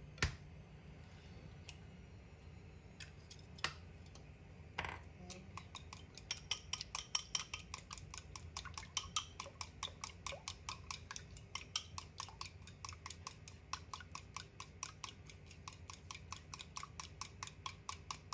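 A few separate knocks, then, from about five seconds in, chopsticks beating an egg in a ceramic bowl: quick, even clicks of the sticks against the bowl, about four or five a second.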